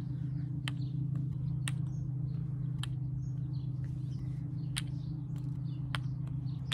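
Wooden kendama clacking: several sharp clicks about a second apart as the ball is caught and tapped on the wooden cups, over a steady low hum, with faint bird chirps behind.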